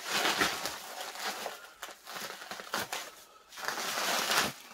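Bubble wrap and plastic film crinkling and rustling as they are pulled and bunched away from a wooden box, in three bouts of crackling.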